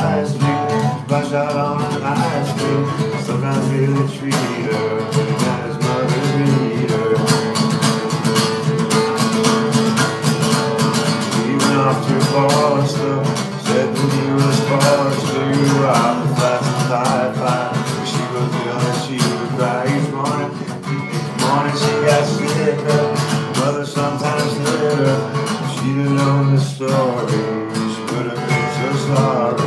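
Acoustic guitar strummed steadily in a continuous rhythm, the chords ringing on without a break.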